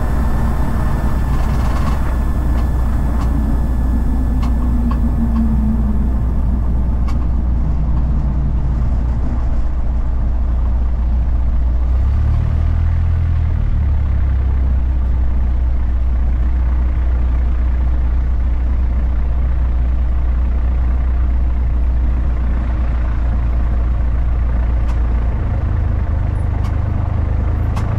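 Cessna 172's engine and propeller at low taxi power, heard inside the cabin. A falling note in the first few seconds as the plane slows off the runway, and the engine note picks up briefly about twelve seconds in and again near the end.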